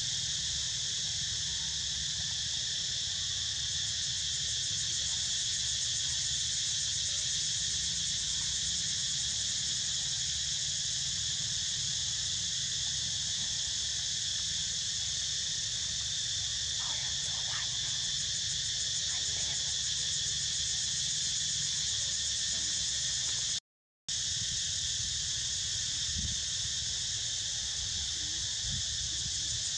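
A dense insect chorus chirrs steadily at a high pitch, with a low rumble underneath. The sound drops out completely for a moment about four-fifths of the way through.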